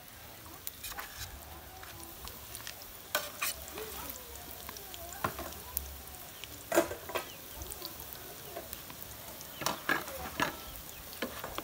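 A metal slotted spatula scraping and clicking against a steel pot and a plastic plate while egg-battered fish in tomato sauce is served, with scattered sharp clicks over the soft steady sizzle of the sauce simmering on a gas burner.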